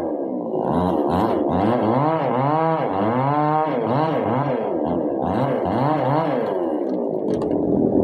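Chainsaw cutting through a thick tree limb, its engine pitch rising and falling again and again as the chain slows in the wood and picks up speed. Near the end the sound turns rougher as the limb is cut through.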